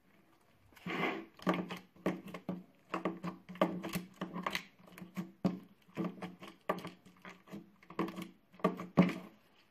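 Slime being pressed and poked against a tabletop with the fingers: a quick, uneven run of squishy clicks and pops, many a second, starting about a second in.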